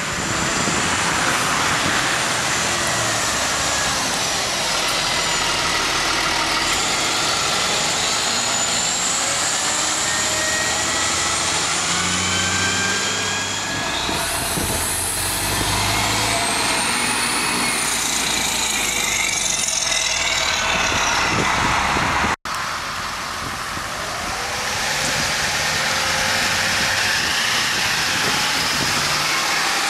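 City transit buses running and pulling away through traffic, their engine and transmission whine rising and falling as they accelerate.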